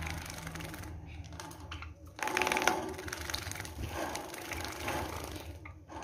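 Caged Java sparrows chattering in quick clicking bursts while one bathes in a water cup, with fluttering and splashing; the loudest burst comes about two seconds in.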